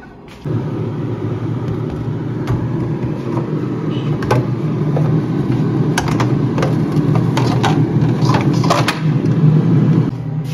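A steady low motor-like rumble starts suddenly about half a second in, with scattered sharp plastic clicks and knocks as a refrigerator's plastic shelf grille is set back into place.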